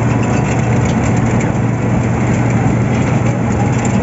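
Heavy diesel engine of road construction machinery running steadily, with a strong low hum.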